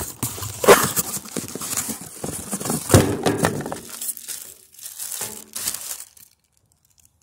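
Clear plastic wrapping crinkling and rustling as it is handled close to the phone's microphone, with irregular crackles, stopping suddenly about six seconds in.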